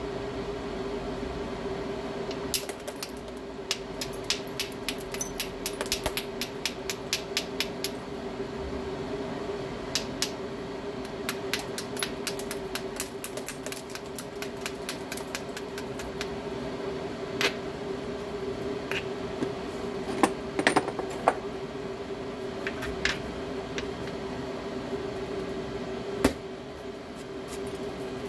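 Hammerstone tapping and striking the edge of a stone biface: runs of quick, light, sharp clicks, about three or four a second, then a few heavier knocks later on.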